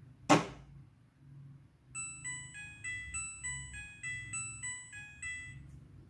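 Midea front-loading washing machine signalling the end of its cycle: a sharp click of the door lock releasing just after the start, then a short electronic melody of about a dozen bright beeping notes, the end-of-wash tune, over a faint low hum from the machine.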